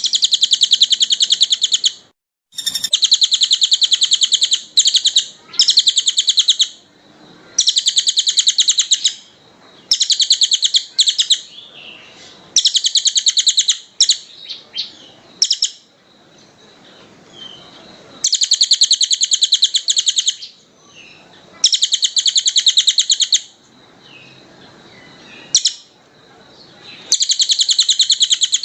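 Songbird singing very fast, tightly packed high trills, in bursts of one to two seconds with short pauses between, about a dozen bursts in all.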